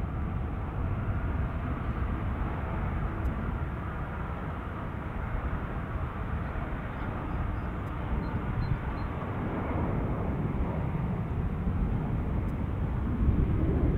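Airbus A350 jet engines (Rolls-Royce Trent XWB) running at low taxi power as the airliner turns onto the runway: a steady low rumble with hiss, growing a little louder near the end.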